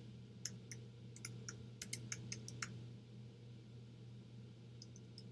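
Faint typing on a computer keyboard: about ten quick keystrokes in the first three seconds and a few more near the end, over a steady low hum.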